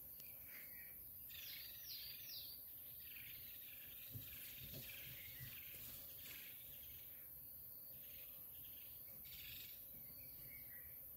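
Faint birds calling: short, high, falling chirps about a second in and again near the end, with a few soft low thumps around the middle.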